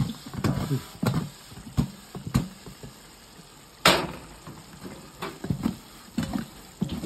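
Covered metal pot being shaken over the burner, the frying cassava inside tumbling and knocking against the pot and its upturned-bowl lid. The knocks come irregularly, the loudest about four seconds in.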